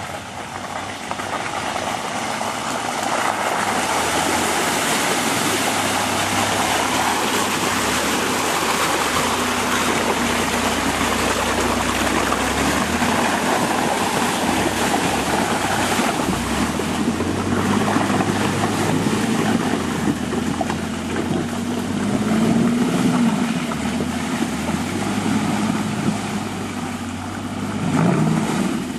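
A lifted 4x4's engine running hard under load as it drives through deep mud and water, its tyres churning and splashing. The engine revs up sharply twice in the second half, the last time near the end.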